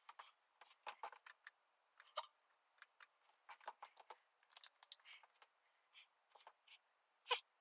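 A string of small, irregular clicks and taps from small hard objects being handled, a few with a brief high clink, and one sharper knock near the end.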